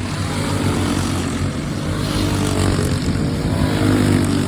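FPV racing quadcopter's motors and propellers running steadily, the whir shifting in pitch as the throttle changes.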